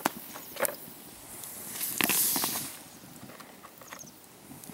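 A hand works in a plastic bucket of water, lifting out cooled stones used for stone boiling the water, with small splashes and knocks of stone. About two seconds in there is a louder burst of noise.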